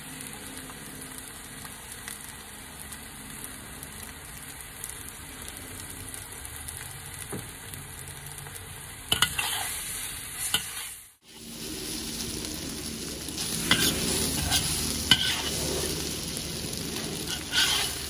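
Spaghetti and seafood sizzling in a hot wok while a metal spatula scrapes and tosses it. There is a brief break about eleven seconds in, after which the sizzling and scraping are louder.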